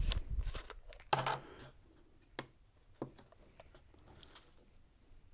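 Small white plastic bottle being handled with a tissue: a short rustle, then a few light plastic clicks and taps as its cap comes off and is set down on the table.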